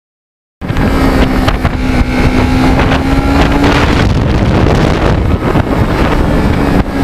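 Kawasaki Ninja 650R's parallel-twin engine running under way, with heavy wind buffeting on the microphone. It cuts in suddenly about half a second in; the engine note climbs slightly, drops away about four seconds in and picks up again near the end.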